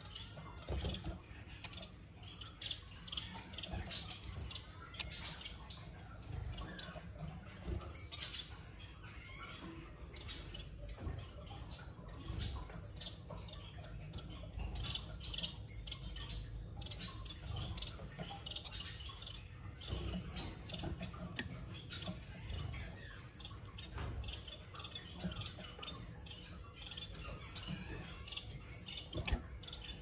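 Finches at the nest chirping: many short, high-pitched chirps and tweets repeated irregularly and without a break, over a steady low hum.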